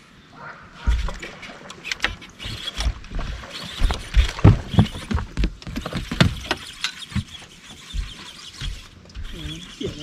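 A run of knocks and thumps on the deck of a bass boat as a hooked bass is fought and scooped up in a long-handled landing net, loudest about halfway through.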